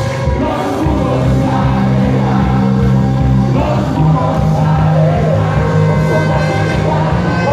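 Loud live worship music over a PA, with a congregation singing and shouting along.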